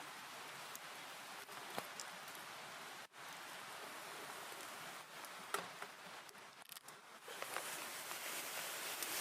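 Wood campfire crackling: a faint, steady hiss with scattered sharp pops, swelling a little near the end.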